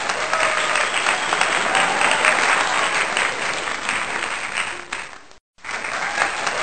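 Audience clapping, dense and steady; it cuts off abruptly about five seconds in and starts again a moment later.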